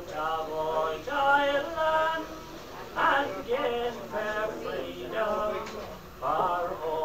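A man singing a traditional Irish ballad unaccompanied, in long held phrases, on a re-mastered early-1990s cassette recording.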